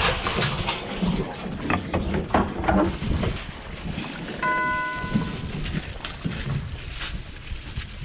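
Irregular knocks and clatter over a steady rumble of wind and water noise, with one short steady beep about four and a half seconds in.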